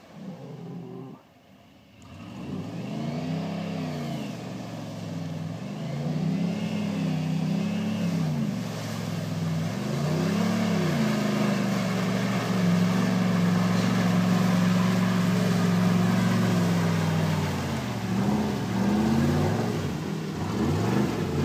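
Chevy pickup truck's engine revving up and down over and over as it drives through mud and standing water, then held at high revs for several seconds about halfway through. The sound drops away briefly about a second in.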